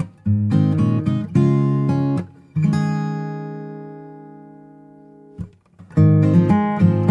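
Background music of strummed acoustic guitar chords; about a third of the way in, one chord is left to ring and slowly fade, then the strumming starts again near the end.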